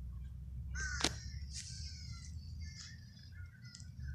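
Birds calling repeatedly with short harsh crow-like calls, over a steady low rumble. A sharp click sounds about a second in.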